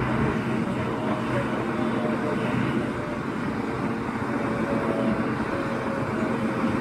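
Diesel locomotive engine idling steadily, a constant low hum with a faint haze of yard noise.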